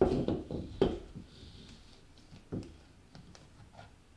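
A wooden stir stick spreading and scraping wet acrylic paint across a stretched canvas, with several sharp knocks and handling sounds in the first second and another knock about two and a half seconds in.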